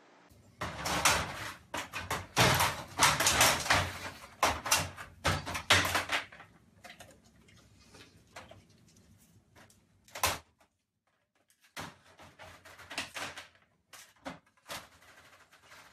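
Pet-door flap rattling and knocking again and again as a large dog pushes and squeezes through it. The knocks come in dense runs for the first few seconds, then once more near the middle, then in scattered clusters near the end.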